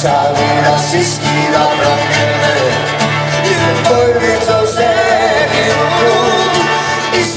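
Background music with a melody over held bass notes.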